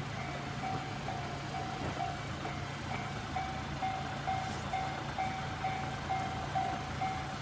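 Japanese railway level-crossing warning bell ringing over and over, a little over two dings a second, warning of an approaching train. A steady low hum runs underneath.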